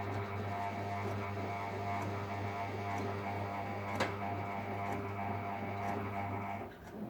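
Ariston Margherita washing machine's motor drones steadily as it turns the drum through a 60° cottons main wash, with a few sharp clicks. The drone stops just before the end as the drum pauses between turns.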